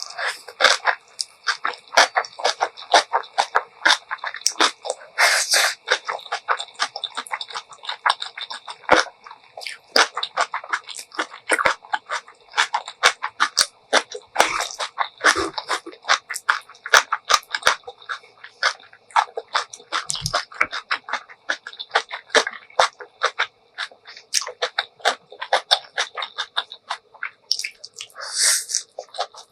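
Close-miked eating: wet chewing and crunching of kimchi and ramen noodles, a rapid, uneven run of moist clicks and crackles, several a second, with two longer hissing bursts, one about five seconds in and one near the end.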